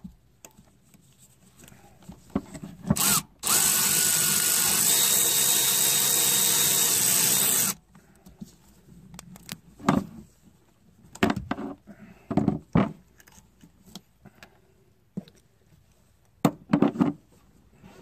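A power tool runs steadily for about four seconds, spinning a socket on an extension to back a spark plug out of the engine. It starts and stops abruptly. Afterwards come a few scattered knocks and clicks of tools against the engine.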